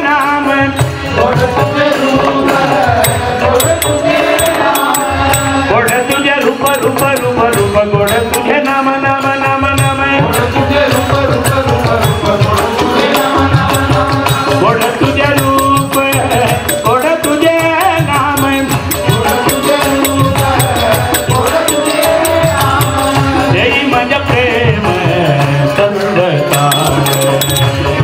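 Live devotional bhajan music: a lead voice singing a melody, with harmonium and percussion keeping a steady beat.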